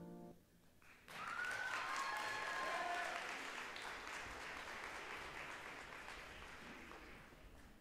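Audience applauding, with a few cheers near the start, after the final note of the song dies away; the clapping sets in about a second in and slowly fades.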